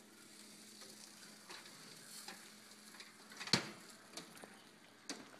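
Faint hiss, then a sharp metallic clank about three and a half seconds in as a metal baking sheet is slid out on the oven rack, followed by a few lighter clicks.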